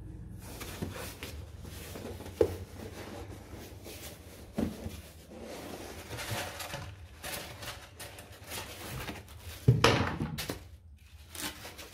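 Cardboard shipping box and its packing being handled: irregular rustling and scraping of cardboard with a few soft knocks. About ten seconds in, a louder scraping burst comes as a polystyrene foam sheet is lifted out.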